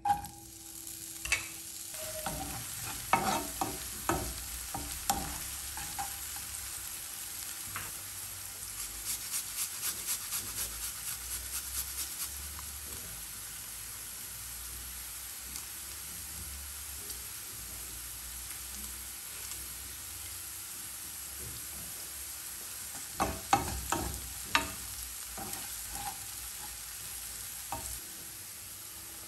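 Diced red onion sizzling steadily as it fries in olive oil in a nonstick pan. Knocks come as the pieces land and are pushed about in the first few seconds, and a run of quick, even scraping strokes follows as garlic is grated over the pan. Later a wooden spoon knocks and scrapes through the onion as it is stirred.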